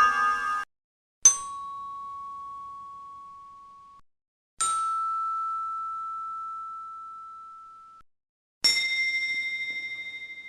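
A bell struck three times, a few seconds apart, each strike ringing out and slowly fading. Each ring is higher in pitch than the one before, and the last one wavers as it fades. Music ends just before the first strike.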